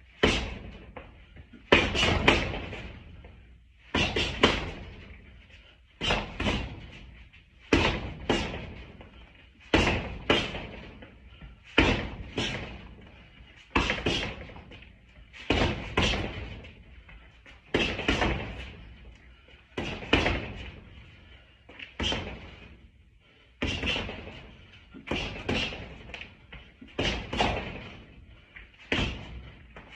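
Boxing gloves striking the padded arms of a Body Action System spinning-bar trainer with hooks and uppercuts: short combinations of two to four sharp hits, about one combination every two seconds.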